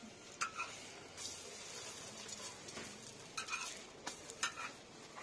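Egg frying on a metal griddle with a faint steady sizzle, as a metal spatula and masher scrape and clack against the griddle surface several times.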